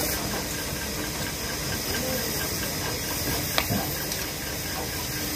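Steady hissing noise, with one sharp knock about three and a half seconds in.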